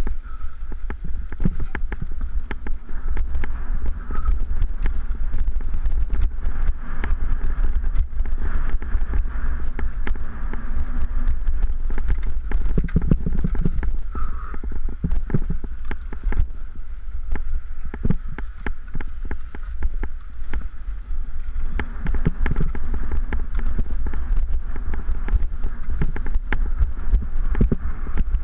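Mountain bike riding fast over rough dirt singletrack: a constant low rumble of wind and vibration on the on-board camera, with frequent irregular clicks, knocks and rattles from the bike over bumps.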